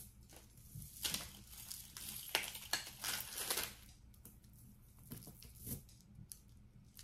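Faint crinkling of small plastic jewelry bags and light clicking of metal chain as a long necklace is pulled out of a pile of costume jewelry, busiest in the first few seconds and sparser toward the end.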